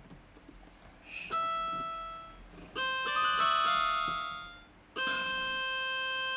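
Budget MK-2089 electronic keyboard played in piano-like chords. One chord is struck about a second in and fades, several notes follow near three seconds, and a chord is held steady from about five seconds on.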